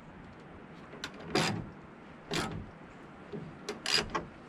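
Ratchet wrench working a rust-seized 13 mm tailgate hinge bolt back and forth, in a handful of short, sharp strokes. The rust on the threads makes the bolt bind.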